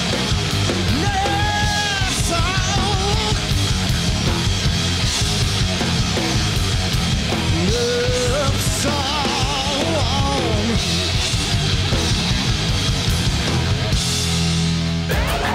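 Live rock band playing loud: electric bass, electric guitar and a drum kit, with a male lead singer singing over them.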